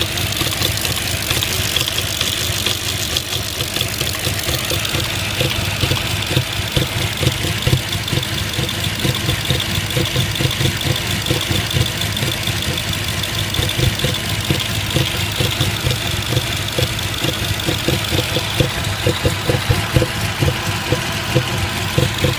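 2005 Audi A6 (C6) engine idling unevenly, with irregular pulses in its beat: the sign of a misfire on cylinders 1 and 3.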